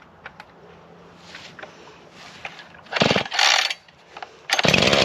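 Husqvarna 440 chainsaw's recoil starter rope pulled sharply twice with the choke on, the first pull about three seconds in. On the second pull, near the end, the two-stroke engine fires briefly as it tries to start.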